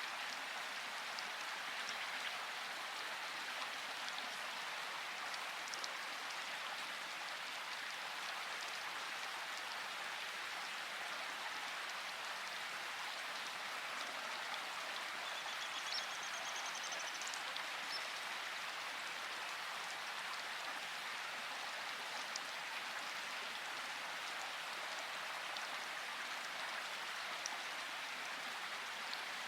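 Steady rain falling: an even hiss with scattered individual drops tapping.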